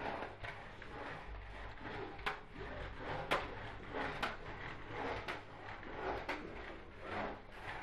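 Vacuum cleaner floor head pushed back and forth over carpet, with a sharp clack about once a second over a steady hiss.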